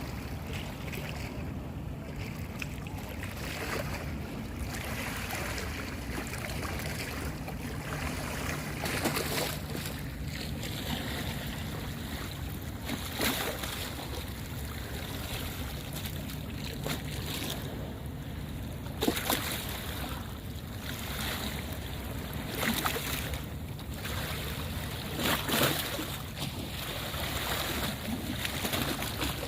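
Sandstorm wind blowing against the microphone: a steady low rumble with irregular gusts of rushing noise that surge and fade every few seconds.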